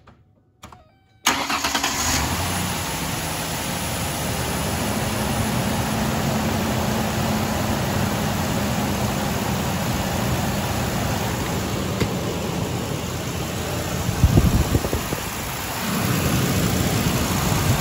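Ford Ranger 4.0-litre V6 starting just over a second in and then idling steadily. It is the first run after a heater control valve replacement, with the engine warming up to test the heater. A brief low rumble comes about 14 seconds in.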